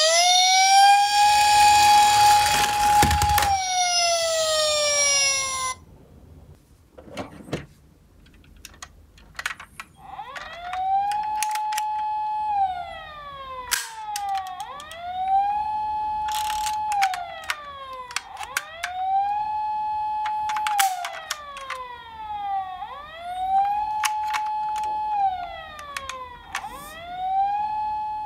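Electronic siren of a toy ambulance minicar wailing: each wail rises, holds a steady high note for a second or two, then falls. One wail opens with a low rumble under it that stops after about three seconds; after a gap with a few clicks, the wail starts again about ten seconds in and repeats about every four seconds.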